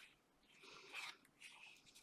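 Faint rustle of paper and card being handled, strongest about a second in.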